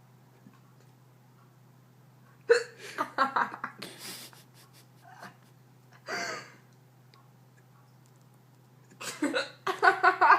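Hiccups coming in bouts: a sharp hiccup about two and a half seconds in, followed by a quick run of short voiced catches, a single one around six seconds, and another quick run near the end.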